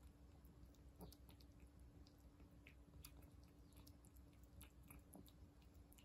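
A calico cat eating wet cat food from a porcelain bowl: faint chewing, heard as irregular small wet clicks and smacks.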